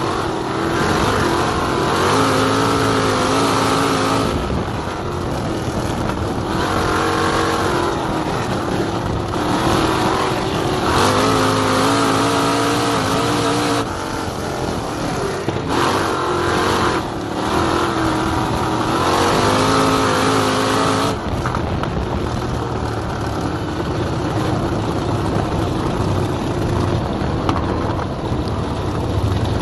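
Dirt-track race car engine heard from on board over rushing wind and track noise. It climbs in pitch under throttle and drops away again in repeated swells a few seconds apart, lap after lap on a short oval, then runs steadier and less distinct from about two-thirds of the way through.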